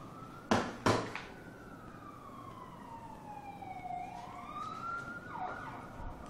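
Siren wailing, its pitch falling slowly and then rising again. Two sharp knocks come about half a second and a second in, louder than the siren.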